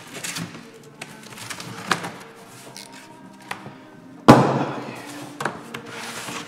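Cardboard glass-shipping box being handled and pulled open, with scraping and rustling and a few light clicks. A single sharp knock, the loudest sound, about four seconds in. Soft background music underneath.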